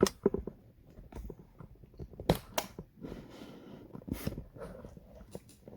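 Irregular light clicks and taps, a few of them sharper, from small metal lock parts and tools being handled.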